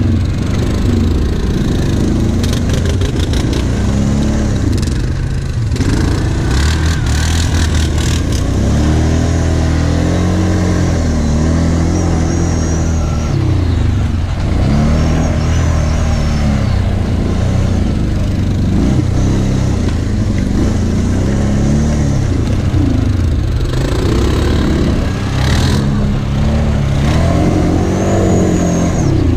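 Kawasaki KVF 750 Brute Force ATV's V-twin engine, heard from on board while riding, revving up and falling back again and again over rough, uneven trail. There is a cluster of clicks and rattles a few seconds in and again near the end.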